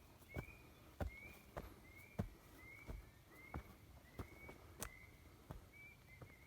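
Footsteps on a mountain trail, a soft thud about every 0.6 s at a steady walking pace. Behind them a short high chirp repeats steadily, a little slower than the steps.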